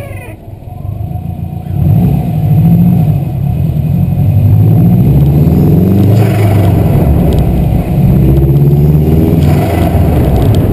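Stage 2 Subaru WRX's turbocharged flat-four accelerating hard, its pitch climbing through two gears. At each shift, about six and nine and a half seconds in, the Greddy blow-off valve vents with a brief hiss. Right at the start, the duck call fitted to the valve gives a falling quack.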